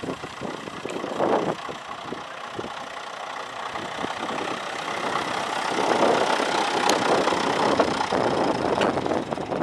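David Brown 750 tractor's engine running at low speed as the tractor drives slowly, fainter for the first few seconds and then growing louder as it draws close.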